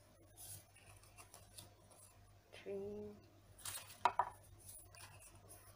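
A stack of paper postcards handled and leafed through by hand: light rustling and flicking of card, with a few sharper paper snaps a little past halfway. A brief murmur of voice comes just before the snaps, over a faint steady low hum.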